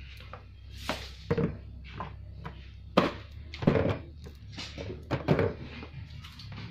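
A series of irregular knocks and thuds, about eight over several seconds, the loudest about three seconds in, from objects being handled and bumped in a small room.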